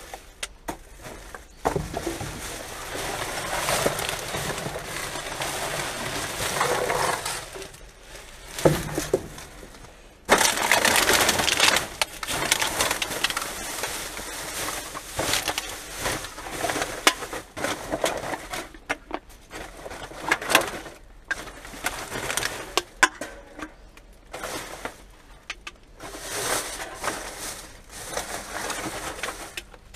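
Black plastic garbage bags crinkling and rustling as they are pulled open and rummaged through by hand, with a dense crackle of small clicks. It gets louder from about ten seconds in.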